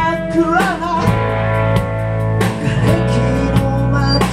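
A live band playing: electric guitar over bass and a steady drum beat.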